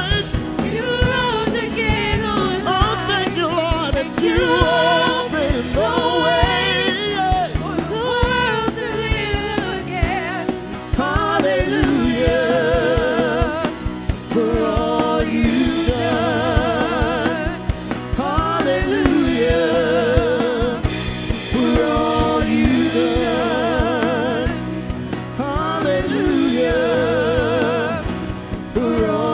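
A male solo singer sings a slow gospel-style worship song with instrumental accompaniment, holding long notes with a wide vibrato.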